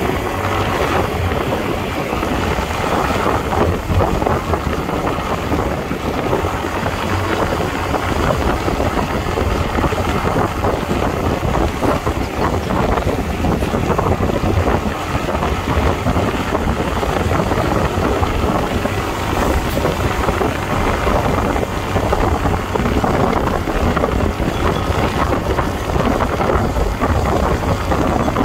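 Wind buffeting the microphone with steady road and traffic noise, from riding a small two-wheeler along a city street.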